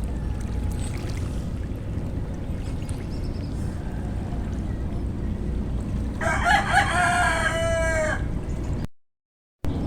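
A rooster crowing once for about two seconds, over a steady low rumble. The audio cuts out briefly near the end.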